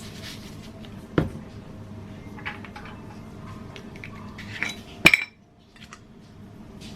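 Kitchen dishes and utensils clinking and knocking as the diced chicken is handled for seasoning, with a sharp knock about a second in and a louder clatter about five seconds in.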